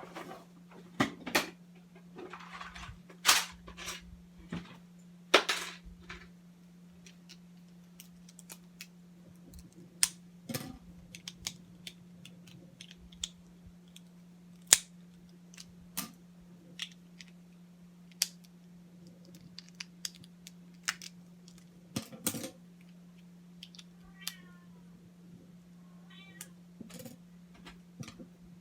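Scattered sharp plastic clicks, knocks and short rattles of LEGO Technic pieces being picked up and handled, over a steady low hum.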